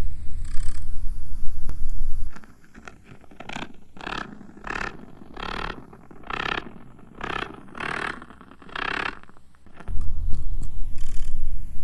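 A loud, deep rumble with crackles. It drops away after about two seconds into a run of about nine short rasping scrapes, roughly one every 0.8 s. Near the end the rumble comes back.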